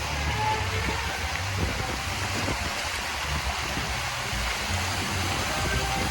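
Dancing water fountain's jets splashing and rushing steadily, with a low rumble underneath.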